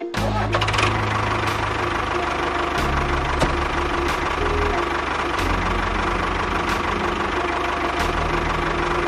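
Tractor engine running steadily at idle, its low beat shifting slightly every second or two, with a faint tick about once a second.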